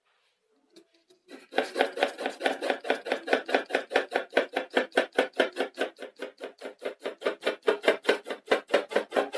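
Graphite pencil hatching on drawing paper: quick, even back-and-forth strokes, about five or six a second, laying in tone over a broad area. The scratching starts about a second in and keeps a steady rhythm.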